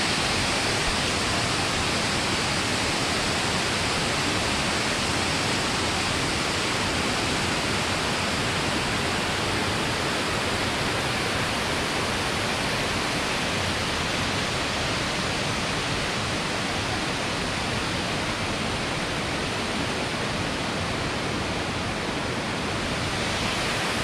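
Steady rush of a mountain waterfall pouring over rock and the fast stream below it, an even roar of falling water that does not change.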